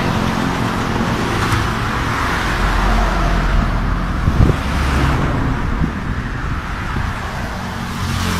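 A road vehicle's engine running close by, with road and traffic noise and a low rumble. There is a single knock about four and a half seconds in.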